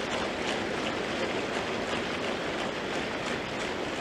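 Steady applause from a large audience, many hands clapping at once.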